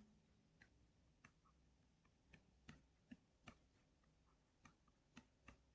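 Near silence broken by about nine faint, irregular ticks of a stylus tapping and lifting on a tablet screen while handwriting.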